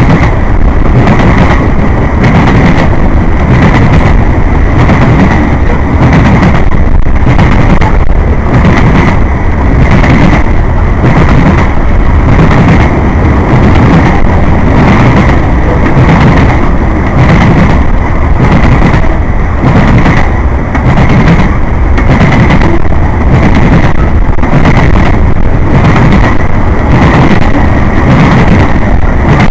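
Freight train cars rolling past close by, their wheels clacking over rail joints in a steady rhythm over a continuous heavy rumble.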